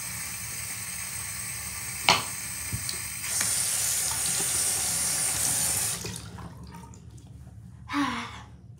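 Bathroom sink tap running with water splashing as a face is washed, with one sharp knock about two seconds in. The running water grows louder about three seconds in and stops about six seconds in, followed by a short breathy sound near the end.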